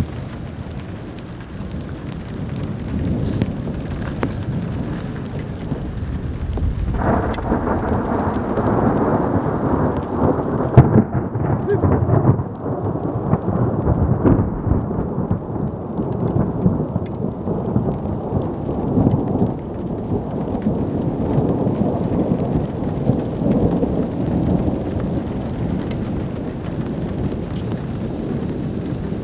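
Thunder rolling in a long low rumble that swells suddenly about seven seconds in and peaks about eleven seconds in, then rolls on, over a steady hiss of rain.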